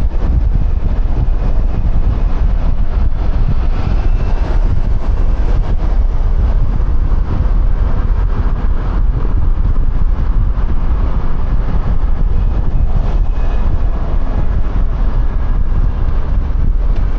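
Steady wind rush and low rumble on a helmet-mounted microphone while riding a QJMotor Fortress 160 scooter at speed, with engine and road noise underneath.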